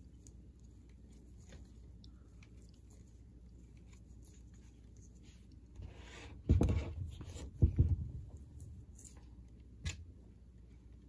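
Soft small clicks of knitting needles working stitches, then a little over six seconds in two loud rumbling bumps with rustling, handling noise as the recording phone or camera is knocked and moved, and one sharp click near the end.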